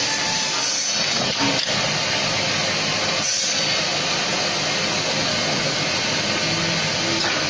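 Automatic paintbrush-making machine running, giving a steady, dense mechanical noise.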